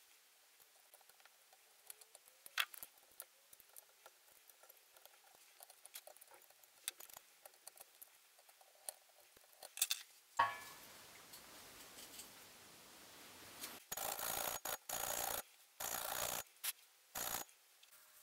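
Faint scratching and small clicks of a metal pick scraping white silicone compound off the die inside an opened TO-3 power transistor can. In the second half come several loud hissing bursts, each up to about a second long, starting and stopping abruptly.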